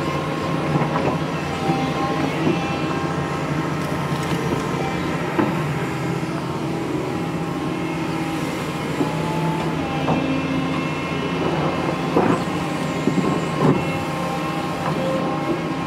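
Doosan DX225LCA excavator's diesel engine running steadily under working load as it digs, with scattered knocks and clunks as it works, the loudest a couple near the end.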